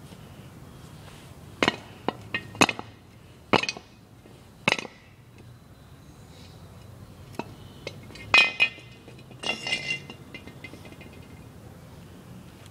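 Sharp clinks and knocks from a hard piggy bank being stepped on and rocked against a concrete floor under a sneaker sole. The clinks come in two clusters: about six in the first five seconds, then a tighter burst of four or five about eight seconds in.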